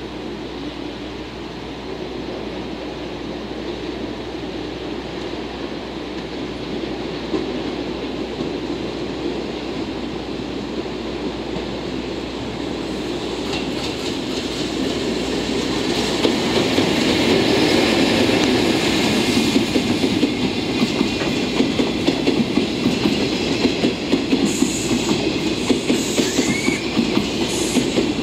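A JR EF65 electric locomotive approaching and passing slowly at the head of Chiki flat wagons loaded with long rails, growing steadily louder over the first half. In the second half the wagons' wheels rattle and clack rapidly over the track, with a brief wheel squeal near the end.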